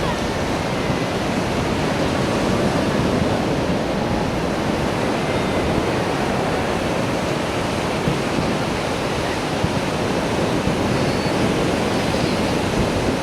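Ocean surf washing steadily on a beach: an even roar with no breaks or bangs.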